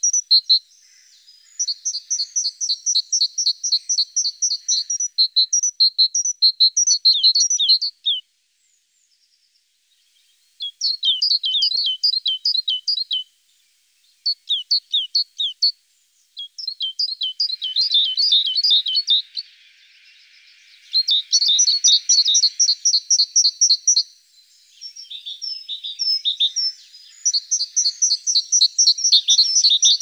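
Small songbirds singing: rapid trills of quick, high chirps in repeated bouts, broken by a silent gap of about two seconds a third of the way in.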